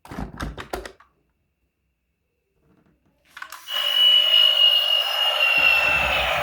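A few quick plastic clicks and rattles of a toy being handled, then a battery-powered toy vehicle's small electric motor starts whirring with a high whine that slowly drops in pitch. About two seconds later a low rumble joins it.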